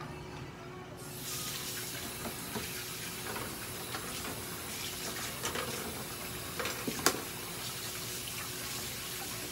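Steady hiss of running water that starts suddenly about a second in, with small ticks and one sharp click about seven seconds in.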